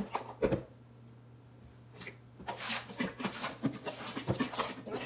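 Raw seasoned chicken pieces being tossed and rubbed by hand in a stainless steel bowl: two knocks of the bowl at the start, then, after a short lull, a steady run of wet squishing and slapping.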